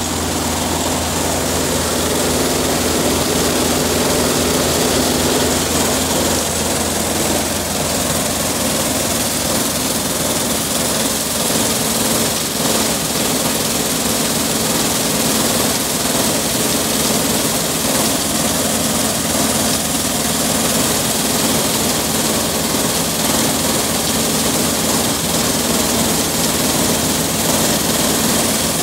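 Home-made soil screener at work: stones and topsoil pour onto a sloping steel mesh screen and rattle down it as it separates 10 to 40 mm stones from the soil. An engine runs steadily underneath.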